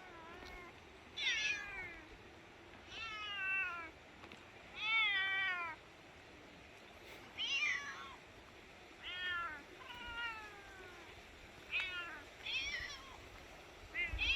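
A stray cat meowing over and over, about nine meows each under a second long, most falling in pitch at the end.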